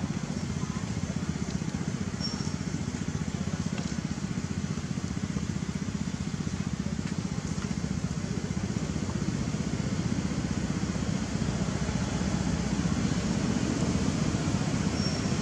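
Steady outdoor background noise, heaviest in the low range, with no distinct events.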